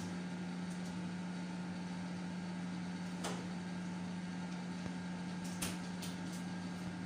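Steady low hum of a running kitchen appliance, with a couple of light clicks partway through.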